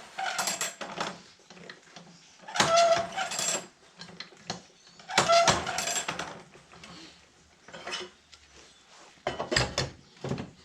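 Woodland Mills tooth setter being worked through a bandsaw mill blade: four metallic clacking strokes, each with a short squeak, about every two and a half seconds.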